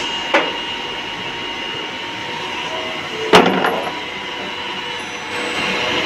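Special-purpose drilling machine running with a steady mechanical hum and whine. Two sharp metal clanks come about a third of a second in and just after three seconds, the second louder. The machine noise rises again near the end.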